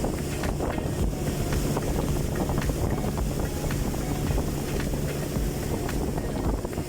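Boat motor running steadily as the boat moves on the river, with wind buffeting the microphone.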